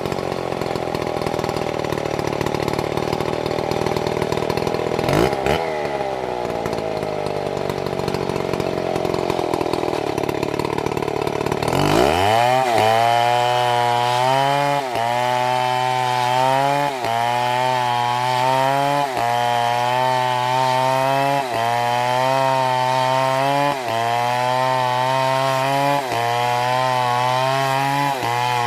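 Chainsaw engine running at high speed, cutting wood. About twelve seconds in the sound changes abruptly to a lower-pitched engine that bogs and recovers in a regular rhythm, about once every two seconds.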